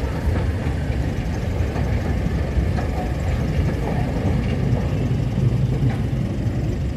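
Narrow-gauge train rolling slowly past: coaches and wagons running over the rails with a steady low rumble.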